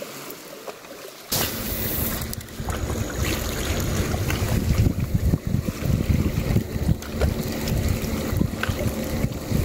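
Wind buffeting the microphone in uneven gusts, starting suddenly about a second in.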